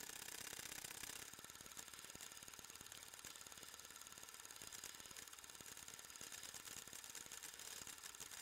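Faint, steady, rapid mechanical clatter of a film projector running, with a light hiss.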